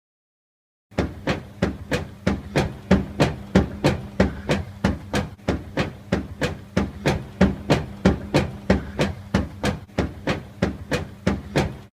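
Beko washing machine knocking rhythmically, about three to four sharp knocks a second over a steady low hum, starting about a second in and cutting off suddenly near the end.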